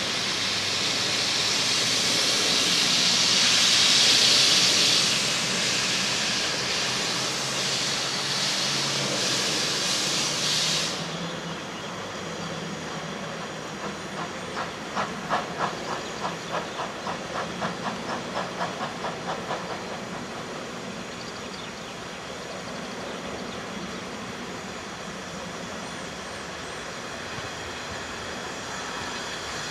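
Narrow-gauge steam locomotive of the Pinzgauer Lokalbahn: a loud hiss of escaping steam that cuts off suddenly about eleven seconds in. It is followed by a run of exhaust chuffs, about three a second, as the engine pulls its carriages past. After the chuffs, the train rolls on more quietly.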